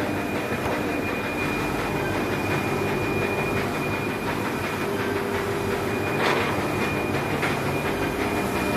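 DTF printing line running, the printer with its powder-shaker and curing dryer feeding printed film out: a steady mechanical drone with a constant thin high whine. A short knock sounds about six seconds in.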